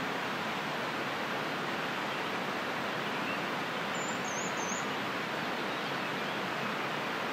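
Steady rushing of a mountain stream, an even unbroken noise at a constant level.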